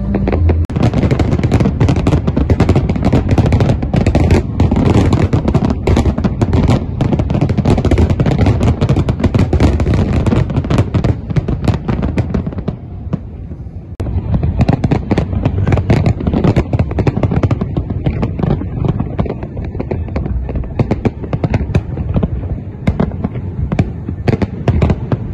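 Dense barrage of fireworks exploding: a rapid, continuous crackle and banging of many bursts. It thins out briefly about halfway through, then picks up again.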